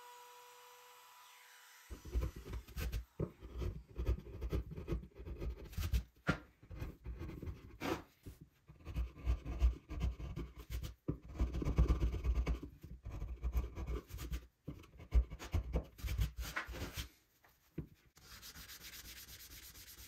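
A wood chisel scraping and paring out the routed grooves of a spruce board in short, irregular strokes, starting about two seconds in after a faint hum cuts off. Near the end it gives way to a sanding block rubbing across the wood in steadier, faster strokes.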